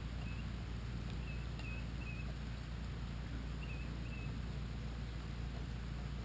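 Steady rain falling, an even hiss over a low rumble. A few short, high, squeaky chirps sound in small clusters over it.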